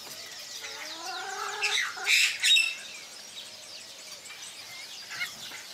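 Animal calls: a drawn-out rising call, then two loud harsh squawks about two seconds in, over the chirping of small birds.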